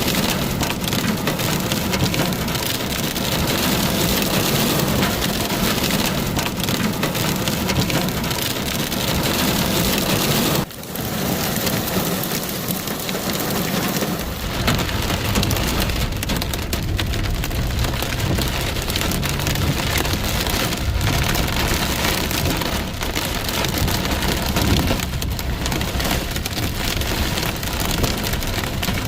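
Heavy rain pouring down in a steady hiss, with a brief dip about a third of the way in and a low rumble joining about halfway through.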